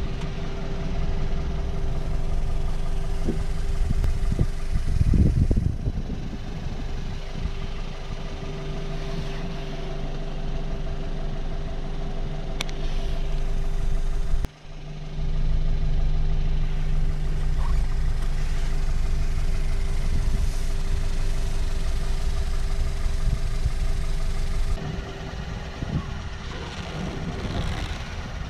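Portable 12-volt air compressor running with a steady mechanical hum. It drops out for a moment about halfway, then runs on, and is quieter near the end.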